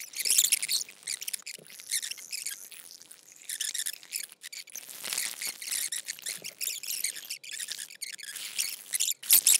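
Long metal bar spoon stirring rock candy sugar in hot water inside a metal shaker tin: continuous irregular high scraping with small clicks as the undissolved crystals are swirled against the metal.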